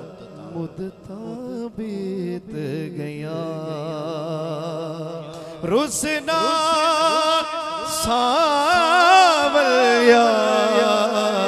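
A man singing a naat in a slow, drawn-out melodic line with heavy vibrato, over a steady low held note in the first half. About six seconds in the voice sweeps sharply up in pitch and grows louder, rising higher again a couple of seconds later.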